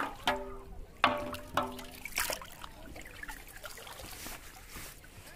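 Light knocks against an aluminium basin, each ringing briefly, three in the first two seconds, while water sloshes and trickles around a person wading.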